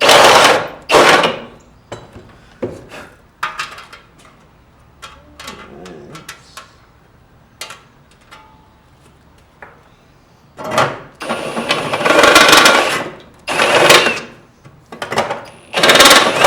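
Power tool cutting holes through sheet metal in short bursts of about a second each, for Dzus quarter-turn fasteners in a seat pan. There are two bursts at the start, light clicks and handling between, then a run of louder bursts in the last several seconds.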